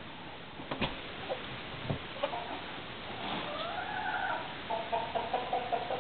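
Chickens calling: one drawn-out call that rises and then holds for about a second midway, followed near the end by a quick run of clucks, about five a second. Two sharp knocks come in the first two seconds.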